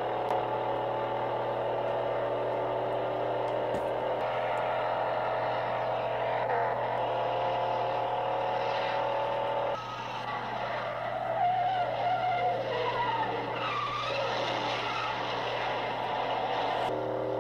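Car-chase soundtrack: V8 engines of a late-1960s Ford Mustang fastback and Dodge Charger revving hard and climbing in pitch as they accelerate. After a cut about ten seconds in, tyres screech and skid under hard cornering.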